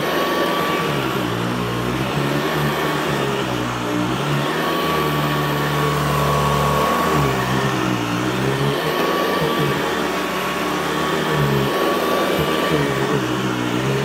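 Hoover EH50500 commercial bagless upright vacuum running steadily as it is pushed back and forth over a rug, with a constant high whine over a lower hum that rises and falls in pitch.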